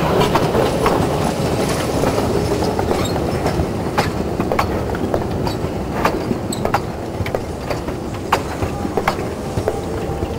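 A train of 600 mm narrow gauge coal hopper wagons rolling past close by: a steady rumble of wheels on rail, broken by sharp, irregular clicks and clanks.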